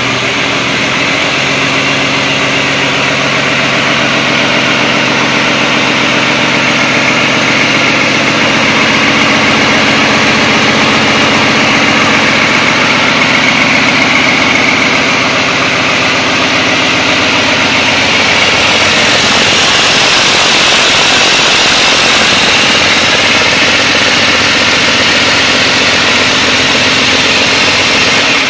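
2005 Mack AI inline-six diesel engine running steadily on a test stand at idle. A higher hiss grows stronger about two-thirds of the way through.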